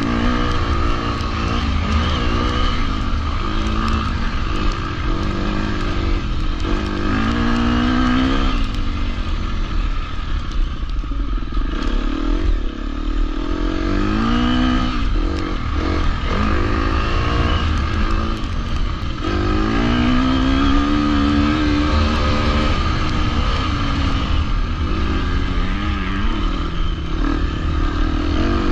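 A 250cc four-stroke motocross bike's engine, recorded by an onboard camera, running hard along the track. Its pitch climbs in repeated rising sweeps as it revs up through the gears, easing off between them.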